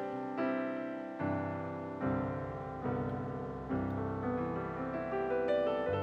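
Soft background piano music, a new note or chord struck a little more than once a second, each one fading away.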